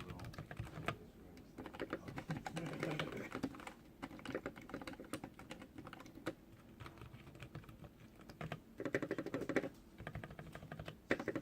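Fast, steady typing on a custom mechanical keyboard with lubed Zeal linear switches mounted in a brass plate: a dense run of keystroke clacks with irregular spacing and no pause.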